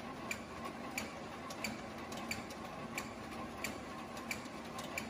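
Automatic V-bottom kraft paper bag making machine running, with a sharp click about every two-thirds of a second over a steady mechanical running noise.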